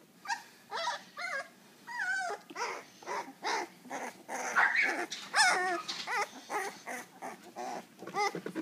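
Two-week-old puppy whining and squealing in a quick run of short, wavering high-pitched cries, about two or three a second, loudest about five seconds in.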